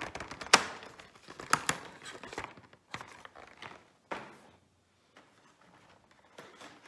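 Cardboard door of a Lindt advent calendar being pried and torn open: a run of sharp cardboard snaps and crackles over the first four seconds, then a few faint rustles.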